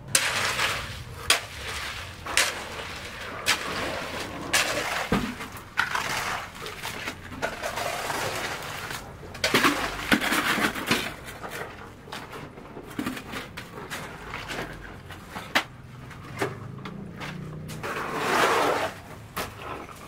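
Hoes and shovels scraping and slopping through wet concrete as it is spread across a floor, with irregular sharp knocks of the tools.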